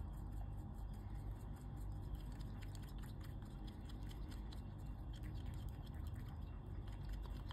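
Wooden stir stick scraping and ticking against the inside of a silicone cup while red pigment paste is mixed into resin, over a low steady background hum. The scratchy ticks come quicker from about halfway through.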